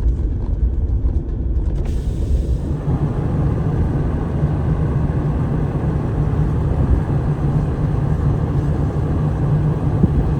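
A vehicle driving steadily, heard from inside: a low engine drone under a steady hiss of tyre and road noise, which grows fuller about two seconds in.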